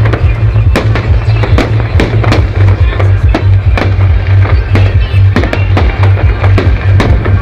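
Fireworks display: sharp bangs of shells bursting, several a second and irregular, over loud bass-heavy music.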